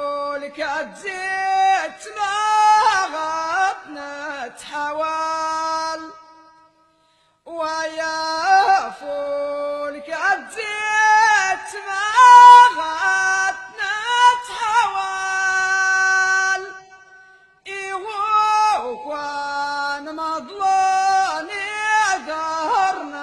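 A single voice singing unaccompanied in long, ornamented phrases of Amazigh ahwach sung poetry, with two short pauses between verses.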